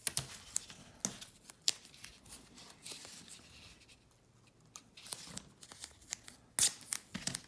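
Painter's tape being torn off the roll and handled: irregular crackles and sharp snaps, with a short lull in the middle and the loudest snap near the end.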